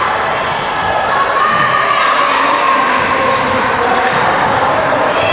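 Basketball being dribbled on a gym court during a youth game, with steady crowd chatter from the stands.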